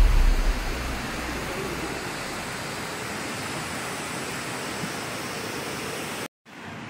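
Steady rushing of creek water in the gorge, an even hiss that breaks off abruptly near the end.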